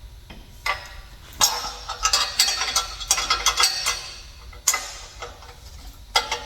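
Irregular metal clicks, clinks and rattles of tools and exhaust parts being handled, with a busy run of clatter in the middle.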